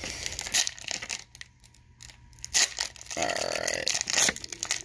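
Foil trading-card pack being torn open by hand: crinkling and crackling of the foil, with a longer tearing stretch about three seconds in.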